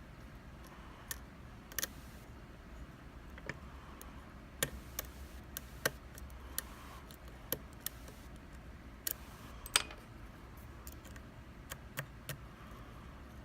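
Small, irregular metallic clicks and ticks of a hook pick and tension tool working the pins inside an Abus E20 lock during picking.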